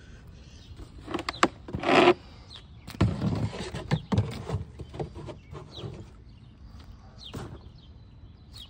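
Zamberlan GTX leather hiking boots treading on a black plastic garbage bag stuffed with trash. The plastic crinkles and crunches loudly underfoot about two seconds in and again from about three to four seconds, followed by quieter scuffing steps on grass.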